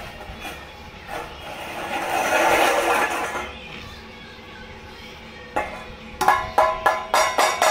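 Stainless-steel dog bowl being struck over and over, a quick run of sharp ringing clanks, about four a second, in the last two seconds. Before that comes a louder scraping rush about two seconds in.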